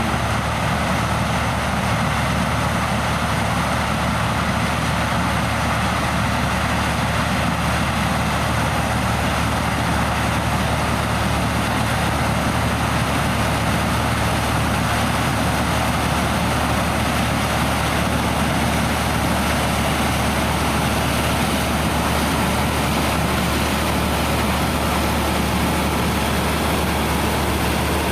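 Heavy diesel farm machinery running steadily: a constant low engine drone with an even mechanical rush over it that does not change.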